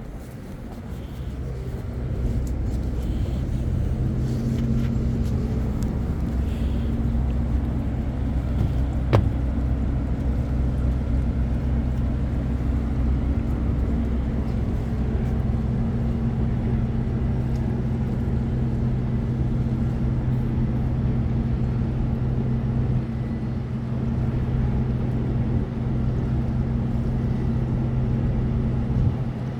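A motor vehicle's engine running at a steady low hum. It comes in about two seconds in and stops just before the end, with a single sharp click around nine seconds in.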